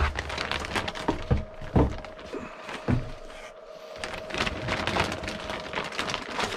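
Plastic parts bags and kit packaging being handled: a run of rustling and clicking, with a few dull thumps in the first three seconds as items are set down.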